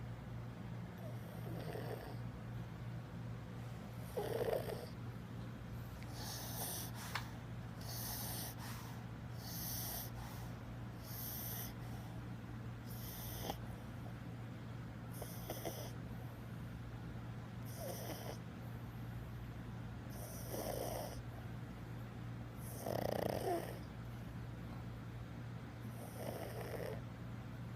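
An elderly pug snoring in its sleep, one snore every two to three seconds, over a steady low hum.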